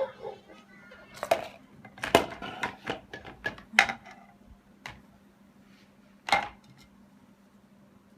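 Kitchen clatter: a run of sharp clinks and knocks of dishes and utensils being handled, bunched in the first four seconds, then two more spaced out. A faint steady hum runs underneath.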